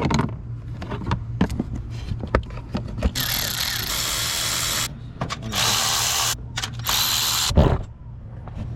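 A cordless power tool whirring in three short runs, the first about two seconds long and the next two about a second each, after a few scattered clicks of tools being handled.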